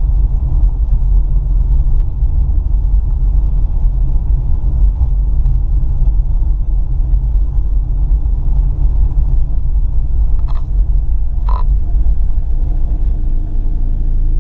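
Toyota RAV4's 3S-FE four-cylinder engine and exhaust running with a steady low rumble while the car is driven. It runs quietly, with no ticking or hissing, because the exhaust leak has been welded shut.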